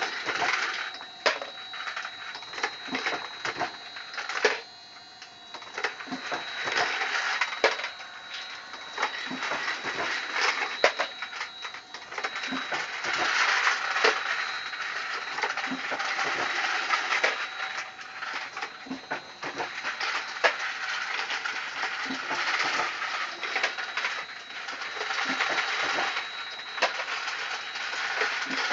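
Motor-driven Dillon 1050 progressive reloading press running automatically: repeated metallic clanks and clinks of the press and brass over a constant rattling clatter. A steady high whine runs alongside and stops about two-thirds of the way through.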